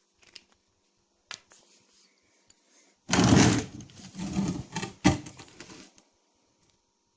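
Handling noises: a few light clicks, then from about three seconds in a loud rustling, scraping clatter with sharp knocks that stops about three seconds later.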